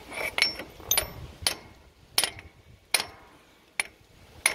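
About seven sharp metallic clinks, roughly one every two-thirds of a second, from a 3/4-inch wrench with a pipe extension being worked on the chain tensioner bolt of a Toro stand-on aerator. The bolt is being drawn up very tight so the tine chain does not work loose.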